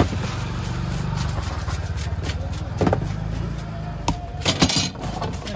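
Low, steady engine hum with a few sharp knocks and clatter over it, the loudest about four and a half seconds in.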